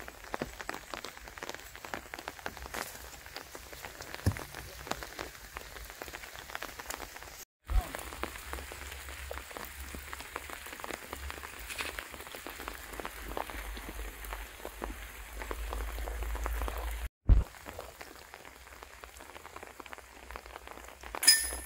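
Steady rain, with fine drops pattering densely. A low wind rumble on the microphone builds through the middle stretch, and a short sharp clink sounds near the end.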